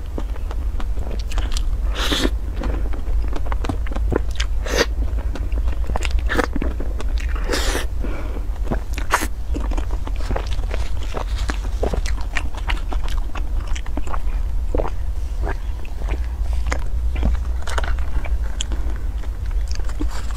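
Close-up eating sounds: a person biting and chewing food, with many short wet mouth clicks and smacks scattered irregularly through it. A steady low hum runs underneath.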